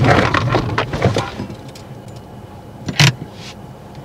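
A car braking hard to a halt in an emergency stop, heard from inside the cabin, with a spell of rumbling and knocking in the first second, then the engine idling quietly and one sharp click about three seconds in.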